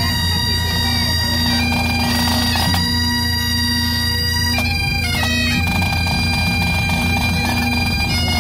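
Highland bagpipes playing a tune: the chanter melody moves between held notes over the steady hum of the drones.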